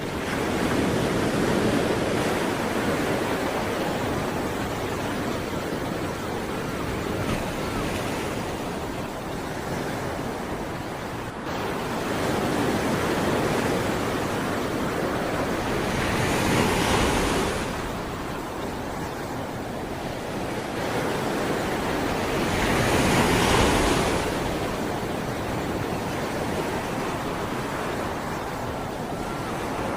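Sea waves washing onto a shore, a steady rush of surf that swells and eases, with the biggest waves breaking about halfway through and again later on.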